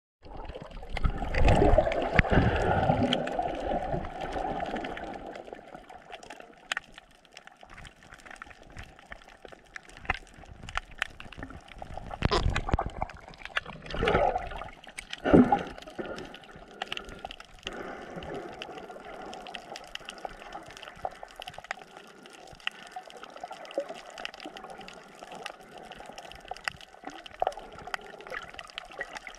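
Water sloshing and bubbling, muffled by being picked up underwater. It is loudest in the first few seconds and in a few short surges around the middle, with faint scattered clicks in between.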